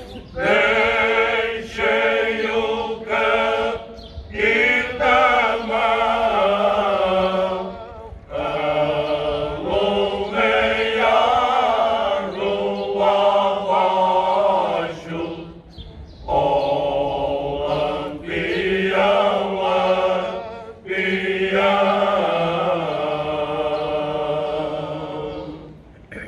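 Male choir singing cante alentejano unaccompanied, several voices in parts. The phrases are long and drawn out, with short breaks between them every four to five seconds.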